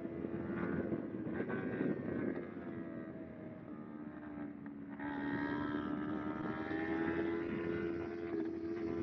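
Kawasaki Ninja 250R's parallel-twin engine running at steady high revs, easing off with a slight drop in pitch about three seconds in, then back on the throttle and louder from about five seconds in.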